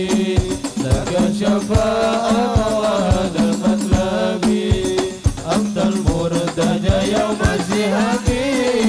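Sholawat devotional singing by male voices into microphones, amplified, over a regular beat of rebana frame drums.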